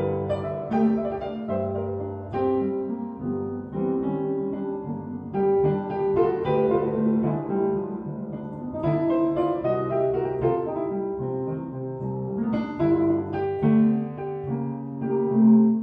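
Grand piano playing sustained chords, heard through Universal Audio's Sound City Studios room-emulation plugin with its echo chamber added.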